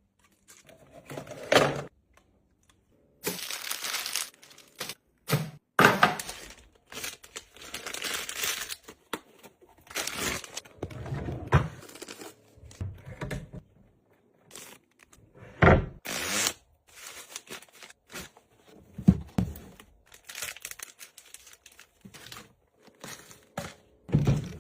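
Close-up handling of packaging and small items: irregular crinkling and tearing, broken by several sharp knocks as things are put down.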